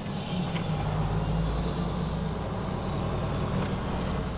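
Semi truck's diesel engine running with a steady low hum, heard from inside the cab as the truck moves slowly.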